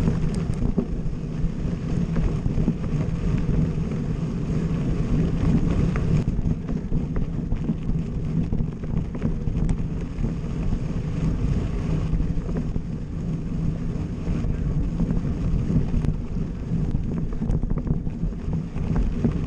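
Wind buffeting the microphone of a camera on a moving mountain bike, over the steady low rumble of the tyres rolling on a gravel road, with a few light clicks and rattles.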